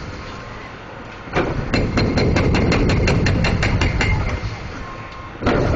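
Rapid, rhythmic hammering on concrete, several blows a second, over a low machine rumble, typical of a hydraulic breaker on a demolition machine. It starts about a second and a half in, pauses briefly, and resumes near the end.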